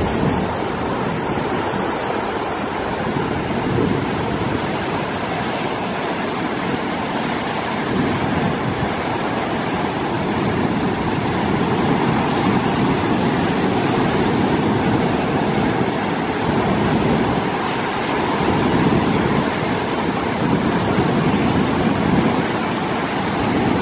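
Atlantic Ocean surf breaking and washing ashore: a steady rushing noise that swells and eases as the waves come in.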